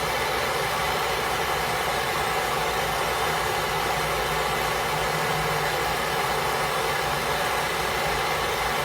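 A torch flame burning steadily with an even hiss, held on lump charcoal to light it.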